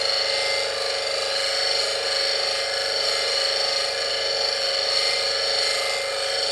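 Bench grinder running with a CBN wheel while a steel woodturning gouge is held to it, grinding back the wings of a fingernail profile: a steady motor hum under an even grinding noise.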